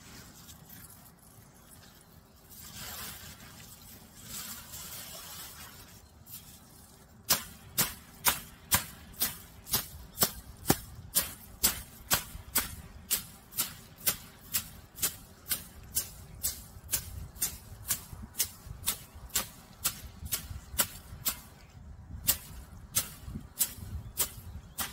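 A stick beating dried perilla plants through a covering net on a tarp to thresh out the seed: soft rustling at first, then from about seven seconds in a steady run of sharp strikes, about two a second.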